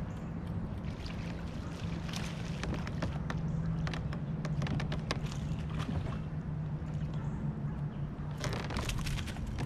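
A steady low motor hum runs throughout, with scattered small clicks. A little over eight seconds in, a rod is cast, with a short cluster of rushing noise.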